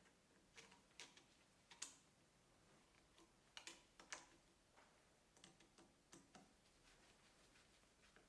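Faint, irregular small clicks and ticks of small M3 machine screws and a hand tool being handled as digital calipers are screwed onto a drill-press adapter, over near silence. The clicks come a few at a time, with the sharpest about two seconds in and another pair around four seconds in.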